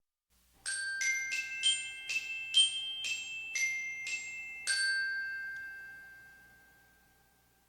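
A short glockenspiel-like jingle of about ten bright struck notes, each ringing briefly; the last note rings longer and fades out about six seconds in.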